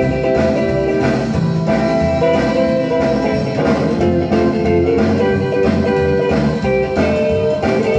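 A rock and roll single playing on an old console record player: an instrumental stretch with guitar to the fore over a steady beat.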